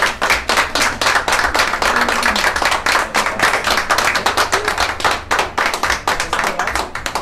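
A few people clapping their hands together, many quick overlapping claps.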